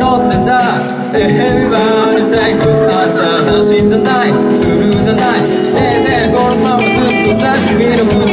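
Live rock band playing a song through a club PA: electric guitars, drums and keyboard, with a male singer's voice over them.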